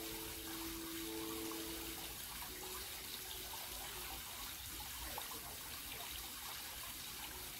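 Water trickling steadily into a garden koi pond.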